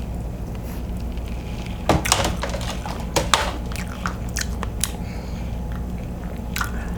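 Close-miked eating of king crab: scattered sharp clicks, crunches and smacks of shell and mouth as the claw meat is worked out and eaten, over a steady low hum. The clicks come in clusters about two, three and a half, and four to five seconds in.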